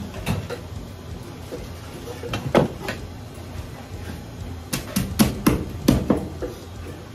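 Irregular sharp knocks and clatter: single knocks early on, then a quick run of about six close together between five and six seconds in, over a low steady hum.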